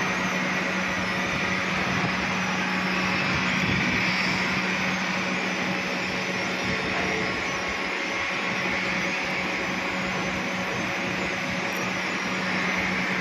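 3-ton electric wire rope hoist running under power as it is driven forward, a steady electric-motor hum with gear noise that holds even throughout.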